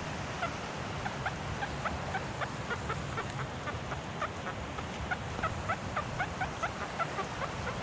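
XP Deus metal detector giving a quick run of short, rising chirping tones, several a second, as the coil is swept over a shallow target, over a low steady rumble.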